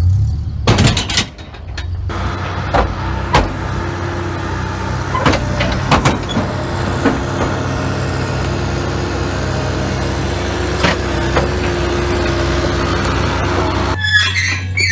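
Vehicle engine running steadily, with sharp metal clanks and knocks now and then.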